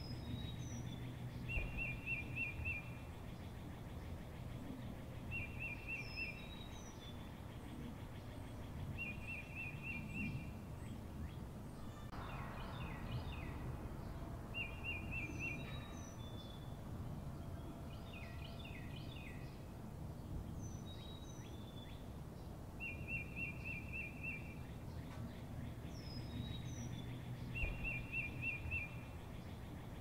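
Songbirds singing over the steady low rush of a mountain stream. One bird repeats a short trill every few seconds, with thin high whistles between, and a busier flurry of calls about twelve seconds in and again a few seconds later.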